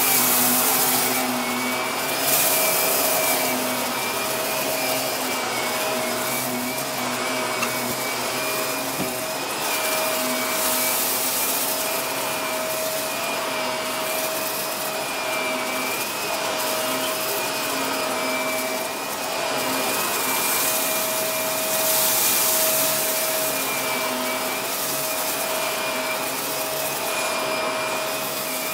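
Bagless upright vacuum cleaner running steadily with a constant motor whine over a loud rush of air, pushed back and forth over carpet, the air noise swelling and easing with the strokes.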